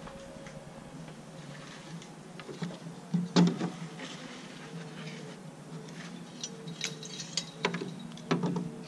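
Scattered light knocks and taps of wooden fence pickets and a spirit level being handled and pressed into place, with one sharper knock about three and a half seconds in and several more near the end.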